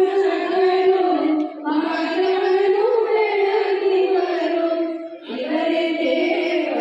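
Voices chanting Hindu wedding mantras in long, held, sung phrases, with short pauses for breath about a second and a half in and about five seconds in.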